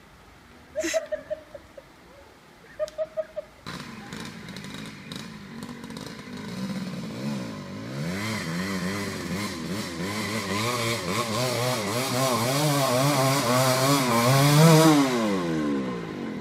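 Dirt bike engine revving hard while straining up a steep muddy hill climb. Its pitch rises and falls over and over. It comes in about four seconds in, grows louder, peaks near the end, then drops away.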